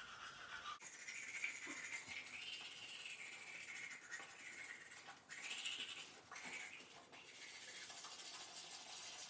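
Manual toothbrush scrubbing teeth: faint, scratchy brushing in uneven strokes.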